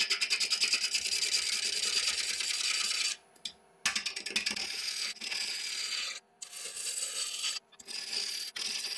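A 1¼-inch spindle roughing gouge cutting into a sycamore blank spinning on a wood lathe, roughing it down to round: a steady hiss of shavings being peeled off, pulsing rapidly at first. The cut stops for nearly a second about three seconds in, and briefly twice more later on.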